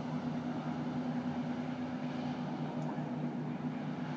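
Jetboat engine running steadily, a constant low drone with a broad rush over it.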